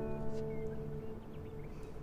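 Gentle instrumental background music: a single held chord that thins out about halfway through.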